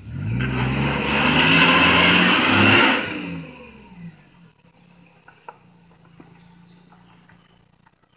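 Maruti Suzuki Omni van's small three-cylinder petrol engine revving hard as the van pulls up a muddy slope, the pitch climbing and holding. About three seconds in the revs drop away and the engine fades to a faint low hum.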